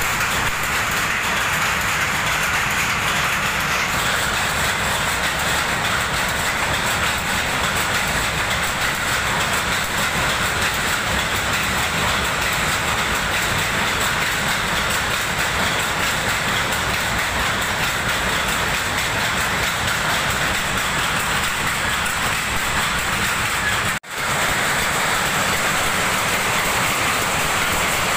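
Power loom with a lappet attachment weaving, a loud, steady, rapid mechanical clatter. The sound cuts out for an instant near the end and picks straight back up.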